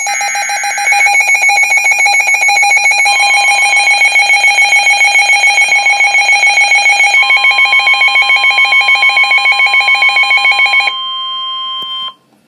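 Emergency alert tones: rapid, evenly pulsing electronic alarm beeps over steady high tones. About three seconds in they are joined by a steady single tone, the NOAA Weather Radio 1050 Hz warning alarm. The beeping stops about eleven seconds in, and the lone tone cuts off shortly before the end.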